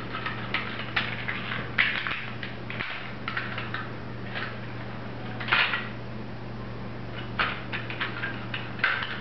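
Plastic clicks, taps and rattles of a black six-armed toy drone being handled and its propellers worked off by hand, coming irregularly with one louder click about halfway through. A steady low hum runs underneath.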